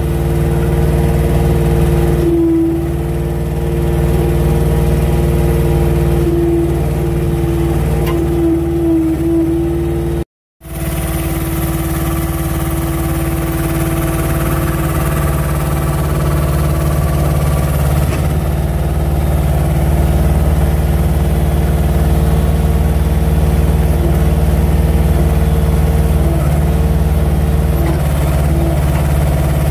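Truck's diesel engine running steadily at idle, a constant low rumble with a steady droning tone. The sound cuts out for a moment about ten seconds in, then the same engine sound carries on.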